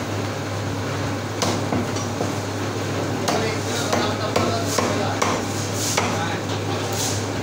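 Meat cleaver chopping goat meat on a round wooden log block: a string of irregularly spaced chops, about one or two a second, over a steady low hum.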